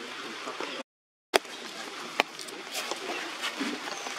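Steady outdoor background hiss with a few sharp clicks, broken by a dead-silent gap of about half a second about a second in.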